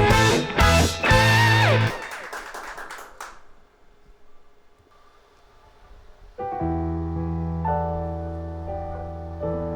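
A live band ends a song with a few final accented hits, its ringing dying away over a second or so. After a short pause, a keyboard starts playing slow, held piano chords.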